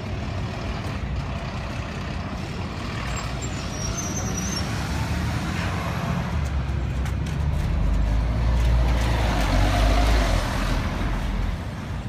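City buses driving past and pulling in to a stop: a steady low engine rumble that builds about halfway through, is loudest as a bus draws up, then drops shortly before the end.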